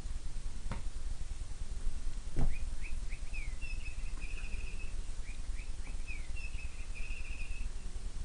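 A small bird singing the same short phrase twice: a few quick slurred chirps ending in a rapid trill. A thump sounds as the song begins, over a steady low hum.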